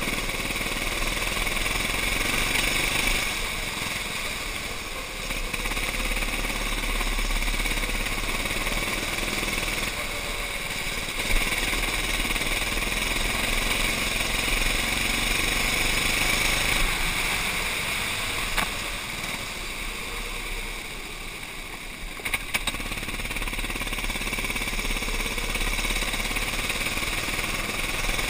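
Racing kart engine running at speed on a wet track, easing off a few times for corners and building again, with water hiss underneath. A few sharp knocks stand out.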